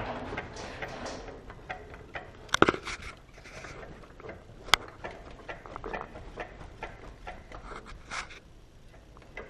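Scattered handling clicks and knocks around the belt-drive reduction, loudest as a sharp double knock about two and a half seconds in and a single sharp click about two seconds later.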